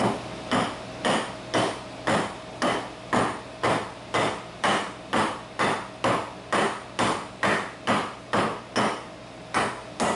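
A block of wood hammering on top of a square steel tube, about two blows a second, driving the tube down through a tight mortise in a wooden beam. There is a short pause near the end.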